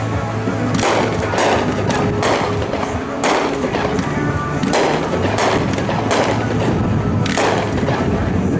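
A 16-shot, 200-gram consumer fireworks cake firing: a string of sharp booms from shots launching and shells bursting, roughly one or two a second.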